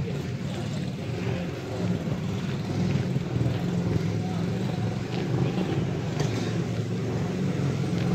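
Steady road-traffic noise at a busy junction: engines of passing vehicles, motorcycle rickshaws (chingchis) among them, running continuously and growing slightly louder toward the end.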